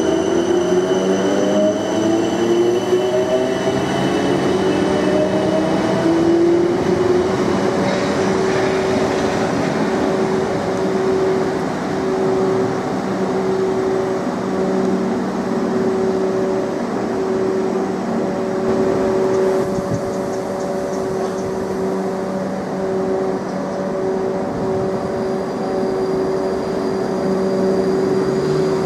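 Class 455 electric multiple-unit trains: one pulling away with its traction motor whine rising in pitch over the first several seconds. It then settles into a steady motor hum over wheel-on-rail rumble as another train runs through.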